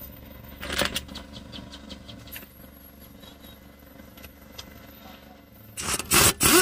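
A few metallic clicks about a second in, then near the end short loud bursts from a pneumatic impact wrench (air gun) loosening the lower brake caliper bracket bolt.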